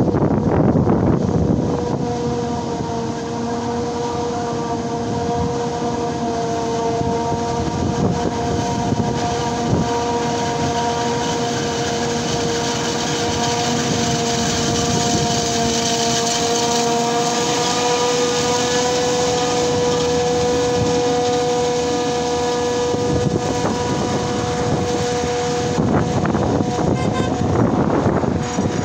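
Self-propelled forage harvester chopping maize, running at steady speed with a high, even whine over a rumble of engine and machinery. Wind gusts on the microphone at the start and again near the end.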